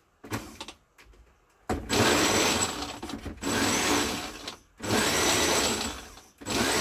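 Countertop blender run in short pulses, churning a full jug of thick beetroot, banana and pineapple smoothie. After a brief pause it starts about 1.7 s in and runs in three bursts, each with a short stop in between.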